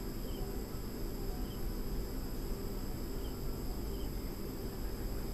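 Crickets trilling steadily, with faint short chirps about once a second, over a low background hum.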